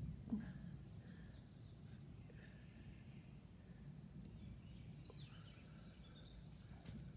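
Faint, steady, high-pitched insect trill from summer garden insects, with a low rumble underneath and a single soft knock about a third of a second in.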